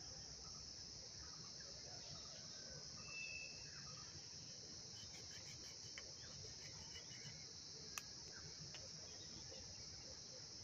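Steady high-pitched insect chorus in tropical forest, with a short chirp about three seconds in and a sharp click about eight seconds in.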